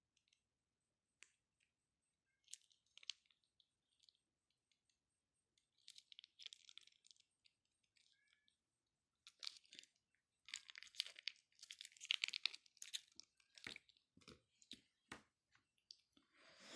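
Faint crinkling and clicking of plastic honey sachets being torn open and squeezed out into a small jar. The sounds are sparse at first and get much busier about ten seconds in.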